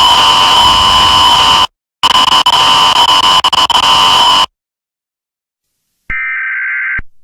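A loud, harsh electronic buzz with a steady tone running through it, broken briefly about two seconds in, cuts off sharply about four and a half seconds in. After a silence, a one-second burst of warbling data tones plays near the end: an EAS SAME header burst, the start of the next emergency alert.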